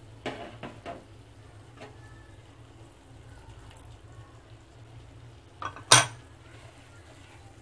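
Wooden spatula and utensils knocking against a metal cooking pan: a few light clacks in the first second and one loud clack about six seconds in. Lemon juice trickles into the pickle masala in between.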